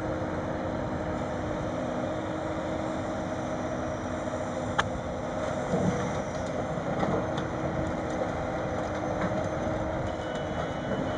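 Sennebogen 870 M material handler running steadily while its grapple swings a load of timber onto a log truck, with a sharp click about five seconds in and a few knocks just after as the load is set down.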